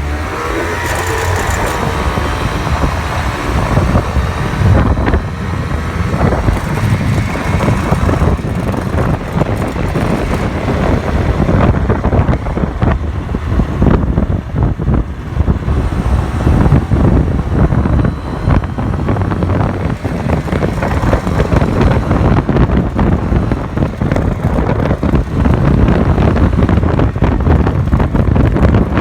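Suzuki Address V100 scooter's two-stroke single-cylinder engine running, with a buzzing 'jijiji' noise mixed into the engine sound that the owner suspects comes from a loose screw.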